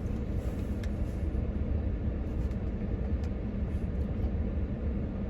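Steady low vehicle rumble heard inside a truck cab, with a few faint clicks.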